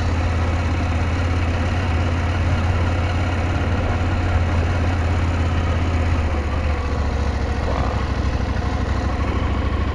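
KTM 790 Adventure motorcycle's parallel-twin engine running steadily at low revs, heard from on the bike under an even rush of wind and road noise; the engine note shifts slightly about two-thirds of the way through.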